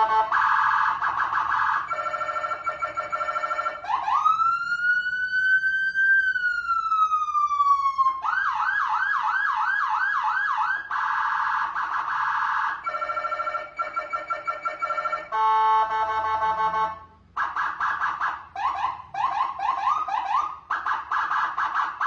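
Electronic vehicle siren cycling through its tone patterns. It opens with a buzzing horn-like tone, then a slow wail rises and falls once, followed by a fast yelp of about three sweeps a second. It then alternates more horn tones and yelps before cutting off near the end.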